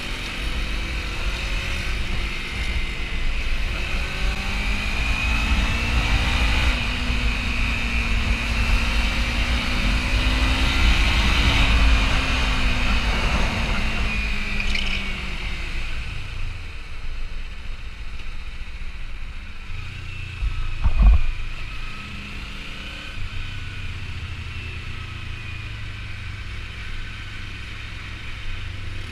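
Kawasaki Ninja 300's parallel-twin engine running on the move, its pitch rising and falling with throttle and gear changes, over a low rumble of wind on the camera microphone. About two-thirds of the way through, a single sharp thump is the loudest sound.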